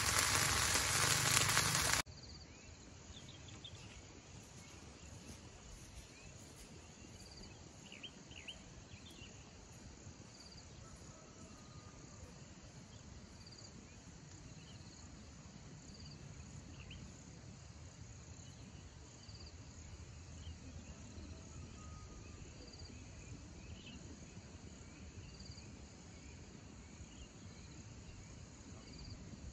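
A loud steady hiss for about two seconds, cut off suddenly. Then quiet outdoor ambience of insects: a faint continuous high drone, with a short high chirp repeating about every two seconds and a few other brief chirps scattered through.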